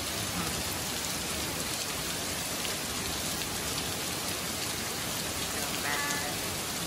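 Steady heavy rain falling in a summer storm.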